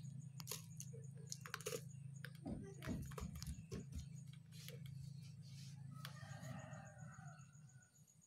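Faint scattered taps and knocks of a plastic blender container and a glass jar being handled as blended noodle powder is tipped and tapped out, over a steady low hum.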